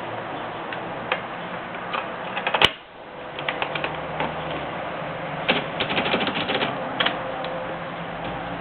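Typewriter keys striking in irregular clusters, with one loud sharp clack about two and a half seconds in and a quick run of keystrokes around the middle, over a steady hiss.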